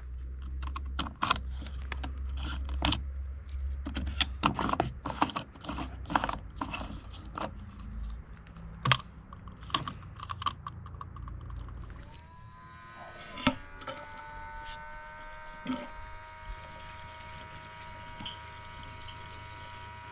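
Irregular knocks, clicks and footsteps over a low rumble. About twelve seconds in, an electric pump motor spins up with a rising whine and then runs steadily, as in filling a tank.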